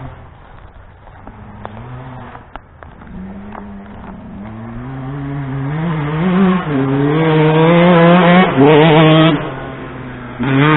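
2007 Yamaha YZ125 two-stroke motocross bike revving hard through its gears as it comes closer, louder from about halfway in. The throttle is chopped suddenly near the end, followed by one short, sharp blip of revs.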